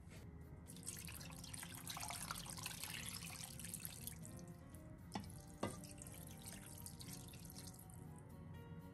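Water pouring steadily into a wide pan of fish pieces, starting about a second in and stopping after about three seconds. Two light knocks follow.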